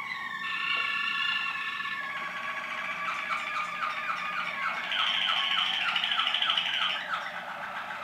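Waterslager canaries singing a continuous song of long held, rolling tones. About halfway through it turns to quick repeated gliding notes, about four a second, and a high held note joins over them for a couple of seconds.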